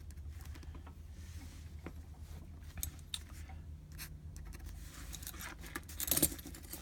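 Dip-pen nib scratching lightly over paper with scattered small ticks, then a brief metallic clinking about six seconds in.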